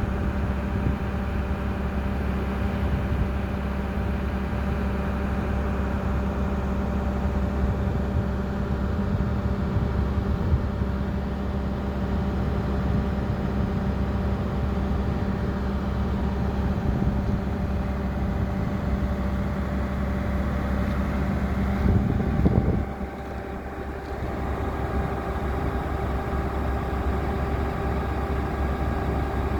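Heavy diesel engine running steadily, with a brief louder surge about 22 seconds in before it eases back to a lower, quieter note.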